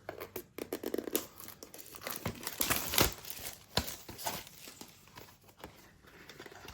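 Packaging being handled and pulled open by hand: irregular crinkling and tearing with scattered clicks and knocks, busiest about halfway through.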